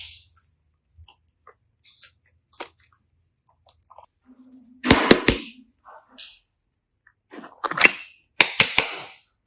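Slime being squeezed and worked by hand, giving scattered sticky clicks, a cluster of sharp pops about five seconds in, and bursts of wet crackling near the end.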